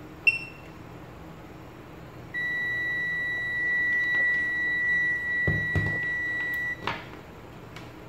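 Short electronic beep from the Riden RD6018 bench power supply as its output button is pressed to switch the output off. About two seconds later a steady high electronic beep sounds for about four and a half seconds and cuts off suddenly, with a few handling knocks near its end.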